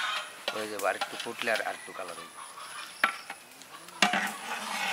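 Long metal ladle stirring rice in a large metal pot of boiling water, over the hiss of the boil. Two sharp knocks come about three and four seconds in.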